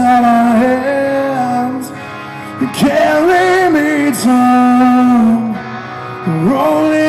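Male rock vocalist singing live over guitar. He holds long notes and slides up and down between them, with brief breaths in between.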